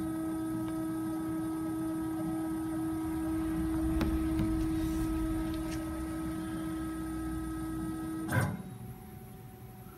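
A Techno 4x8 CNC router's axis drive gives a steady whine as it lowers the tool slowly during an automatic tool touch-off. The whine stops about eight seconds in with a brief knock as the motion ends, marking the end of the touch-off probe.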